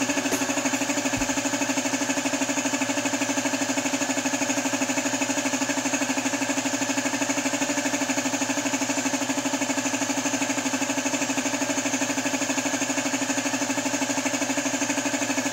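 Air compressor running steadily for spray-finishing, with a fast even pulse, under a hiss of spraying.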